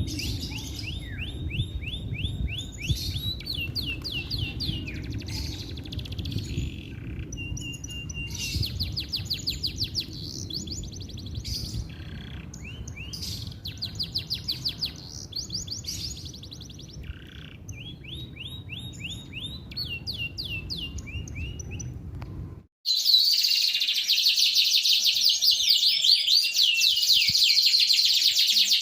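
Domestic canary singing in rapid runs of repeated trilled notes, over a low background rumble. About 23 seconds in, the recording cuts abruptly to a louder, denser stretch of canary song and the rumble stops.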